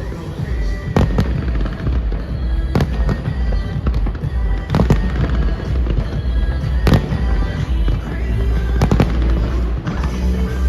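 Fireworks exploding overhead, sharp bangs about every two seconds over loud show music with a heavy bass.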